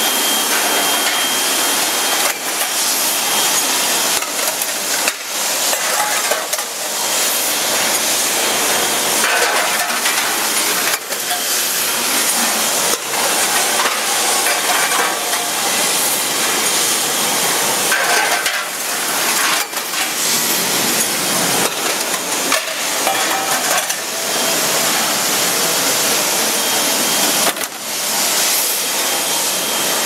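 Dolphin DS-series slide conveyor dishwasher running: a steady hiss of spraying water, with dishes clattering and knocking now and then.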